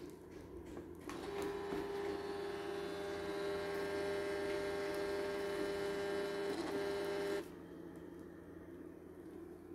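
Built-in thermal printer of a Philips SureSigns VS3 vital signs monitor printing a paper strip: a steady mechanical whine from the paper feed that starts about a second in, falters briefly near the end, and cuts off suddenly after about six seconds.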